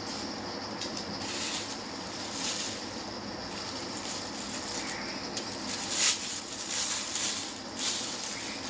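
Thin plastic bag rustling and crinkling in irregular short bursts as it is handled and opened, loudest about six seconds in, over a steady background hiss.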